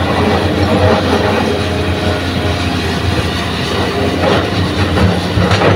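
Heavy diesel machinery running steadily: a Hitachi crawler excavator and a dump truck at work, a deep, constant engine drone with a couple of faint clatters near the end.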